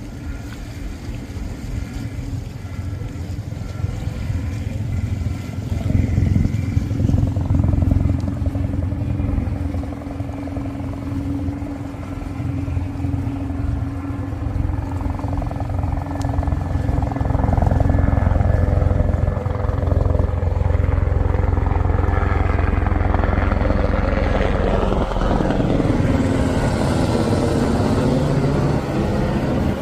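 Navy H-60 Seahawk helicopter approaching and flying low overhead. Its rotor and engine make a steady low rumble that grows louder, and the sound sweeps down in pitch as it passes near the end.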